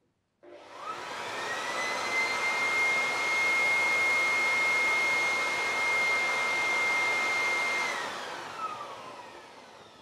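Cordless electric leaf blower spinning up with a rising whine and a rush of air. It runs steadily at full speed for about six seconds, then winds down near the end as the whine falls away.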